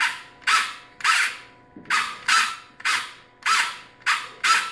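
Nerf Rapidstrike's pusher motor cycling the pusher arm once per press, about two short whirring cycles a second, each starting sharply and dying away. The three-microswitch wiring is being tested to see whether the pusher returns cleanly at the end of each cycle.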